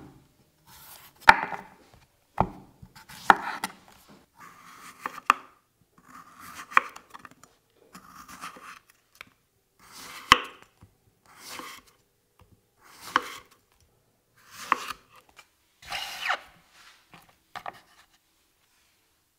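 A chef's knife slicing a raw zucchini into rounds on a wooden cutting board, about a dozen strokes at a steady pace. Each stroke is a short crisp cut through the flesh that ends in a sharp knock of the blade on the board. The slicing stops shortly before the end.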